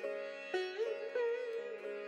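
Background music: a plucked string instrument playing a slow melody of several notes, some sliding up and down in pitch, over a steady drone.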